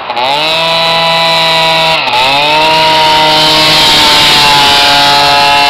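Two-stroke scooter engine with an Athena 80cc big-bore kit accelerating at full throttle. Its pitch climbs, dips briefly about two seconds in, climbs again, then holds high and steady as it passes.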